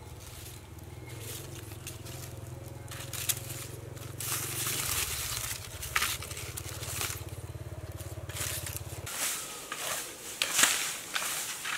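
Dry bamboo leaves and kindling catching fire and crackling, with sharp snaps and the crunch of dry leaf litter. A low steady hum underneath stops about nine seconds in.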